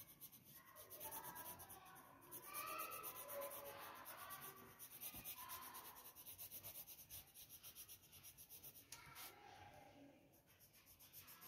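Faint pencil shading on drawing paper, a soft scratching of graphite rubbed back and forth.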